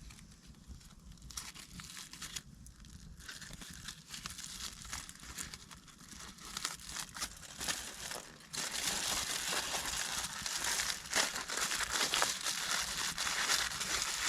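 Close rustling and crackling of natural shelter material such as branches, bark or dry leaves being handled, a dense run of small crackles that grows louder about eight and a half seconds in.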